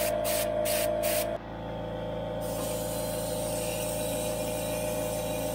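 Air-powered undercoating spray gun spraying through a long plastic wand inside a truck frame. For the first second and a half it gives short bursts of spray hiss, about three a second, and from about two seconds in a steady hiss.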